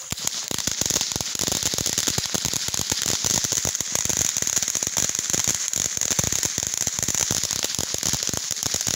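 Ground fountain firework spraying sparks, a steady hiss thick with fast crackling that jumps up in loudness right at the start and keeps going.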